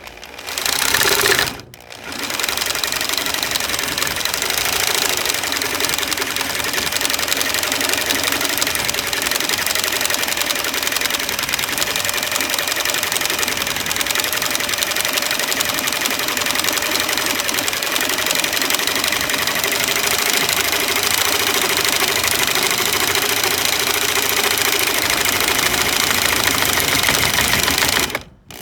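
Electric jigsaw cutting across a wooden board: a short burst about a second in, a brief stop, then steady cutting that ends abruptly near the end.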